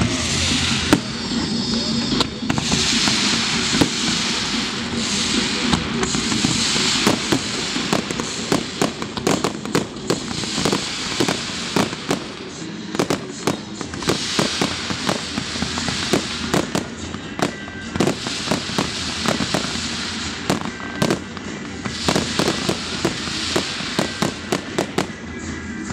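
Fireworks display: a dense run of sharp cracks and pops over the hiss of spark fountains, the hissing swelling and fading every couple of seconds.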